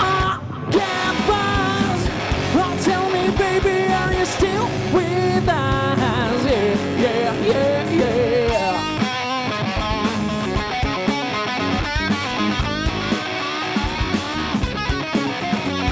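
Live heavy-funk rock band playing: electric guitar lines that bend and slide in pitch over bass and drums.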